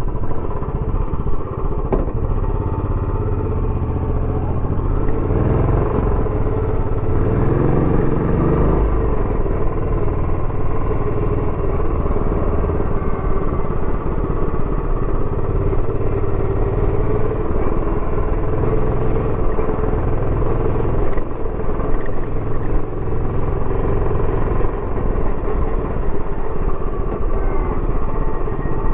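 Royal Enfield Bullet 350X single-cylinder engine running on the move through its stock exhaust. The revs rise once about seven to nine seconds in, then settle back to a steady beat.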